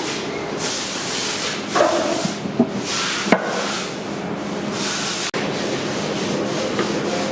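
Workshop noise: repeated surges of hissing, with a few sharp clicks and knocks in the middle.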